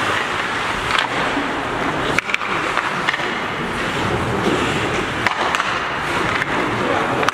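Ice hockey skate blades scraping and carving on rink ice, broken by several sharp knocks of sticks and puck.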